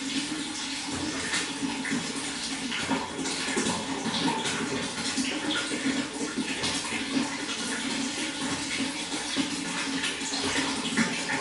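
Running water flowing steadily, with many small splashes throughout.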